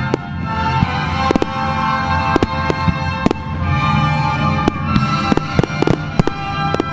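Aerial firework shells bursting with a dozen or so sharp bangs, coming thicker near the end, over music with long held notes.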